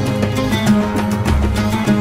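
Instrumental intro theme music with a steady beat: sustained melody and bass notes over regular percussion hits.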